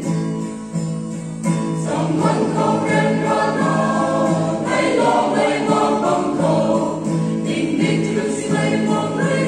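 Mixed choir of men and women singing a hymn together, accompanied by acoustic guitar. There is a brief lull about a second in, then the voices come back in.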